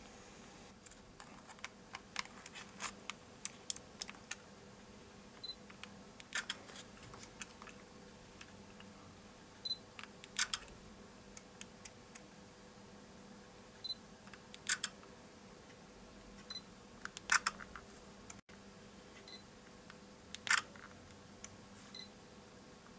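Sony Cyber-shot DSC-W830 compact camera taking shots: five times over, a short beep is followed under a second later by the camera's shutter sound. Light clicks of buttons and handling come in between.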